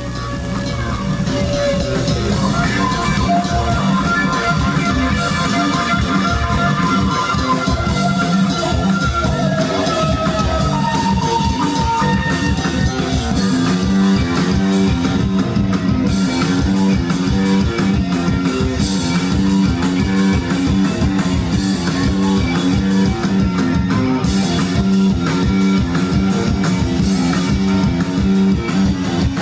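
Live rock band playing a song: a steady drum-kit beat with guitars and a strong bass line, a lead melody weaving on top for about the first twelve seconds.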